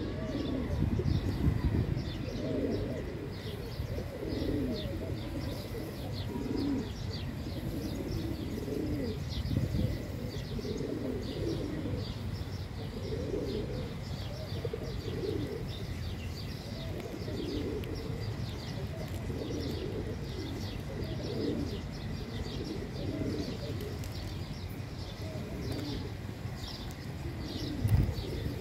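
A flock of feral pigeons cooing over and over, with many short high chirps of small birds. There is a low rumble underneath and a single thump near the end.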